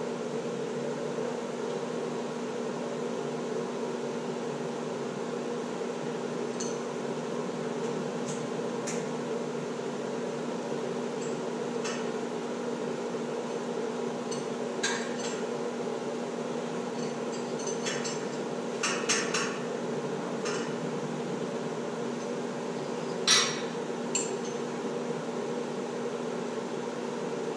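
Tools clinking against metal a few times, in a small cluster past the middle and once more sharply near the end, over a steady mechanical hum.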